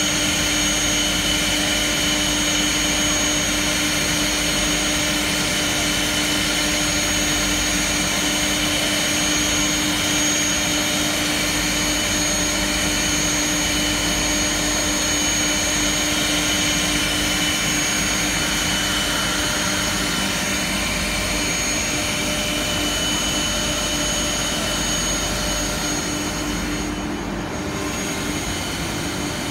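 The high-speed electric router spindles of a multi-head CNC mortising machine running and cutting mortises in wood. They give a steady whine of several pitches over a rushing noise, and the highest part dips briefly near the end.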